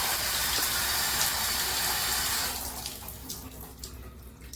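Water rushing from a handheld shower head turned on full, a steady hiss that cuts off about two and a half seconds in, leaving a few faint drips. The water is escaping from the side of the head instead of the spray face, a leak that the owner can't explain.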